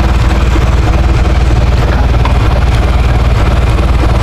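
Ford 2600 tractor's three-cylinder gas engine idling steadily with an even, regular pulse. It is running with its faulty neutral safety switch bypassed.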